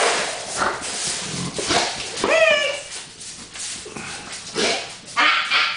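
Mastiff whining excitedly as she is let out of her crate, with one high whine that bends down in pitch about two seconds in and another near the end, between short noisy rustles.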